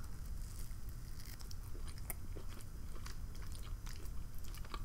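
A person chewing a mouthful of food close to the microphone: small irregular mouth clicks and crunches.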